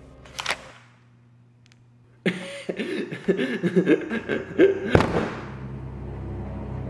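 A voice laughing for a few seconds in a loud, wavering outburst, ended by a heavy thump like a thick book slammed onto a table. A brief sharp hit sounds about half a second in.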